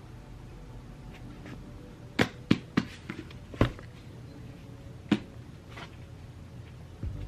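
A handful of sharp taps or knocks: three in quick succession about two seconds in, one more a second later, and a last one near the five-second mark, over a low steady hum.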